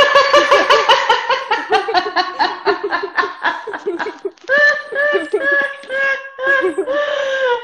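Laughter: a quick run of short laughs, then longer drawn-out laughs in the second half.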